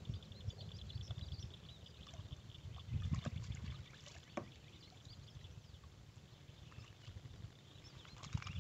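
Faint lakeshore ambience: an uneven low wind rumble on the microphone that swells about three seconds in, with small splashes of water and scattered short high chirps. A rapid high ticking fades out about four seconds in.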